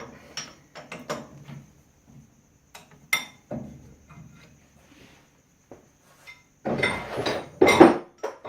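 Steel lathe tooling being handled: a string of sharp metal clinks and knocks, then a louder clatter of metal on metal near the end.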